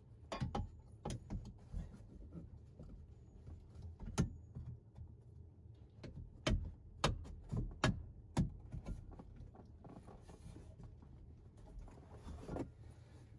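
Metal compressor mounting bracket knocking and clicking against the Jeep's body and hard top as it is worked into place by hand: scattered sharp knocks, a few near the start and a quick run of them around the middle.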